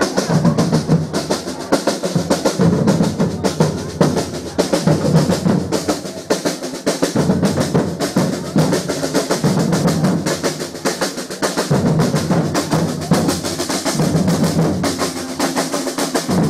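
Batucada samba percussion group playing a dense, continuous rhythm on surdo bass drums and snare drums.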